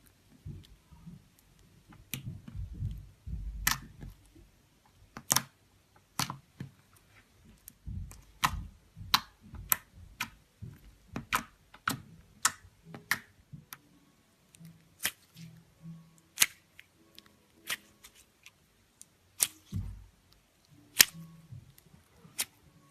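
Slime being kneaded and pressed by hand, with irregular sharp popping clicks from trapped air bubbles and soft squishing between them.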